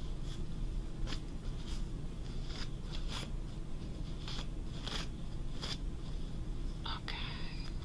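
Seam ripper cutting the stitches out of a trouser seam: a run of small, sharp snips and ticks at irregular spacing, about a dozen.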